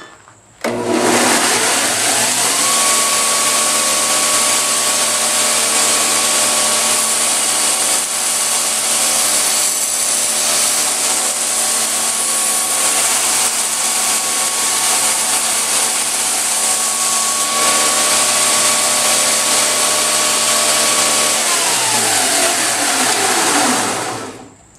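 Homemade 2x72 belt grinder switched on about a second in, its motor spinning up with a rising whine, then running steadily with a loud hiss from the belt, on its third step-pulley speed setting. Near the end it is switched off and coasts down, the whine falling in pitch.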